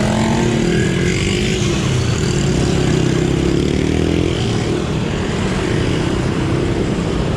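Road traffic: motor vehicle engines running close by, one engine's pitch sliding up and down as it passes, over a steady road noise.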